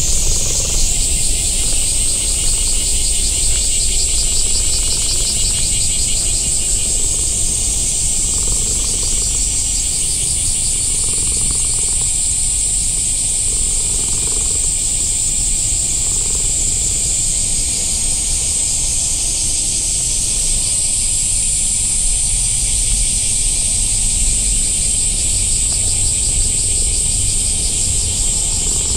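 A steady, high-pitched chorus of cicadas with a fast pulsing texture, and a low rumble underneath.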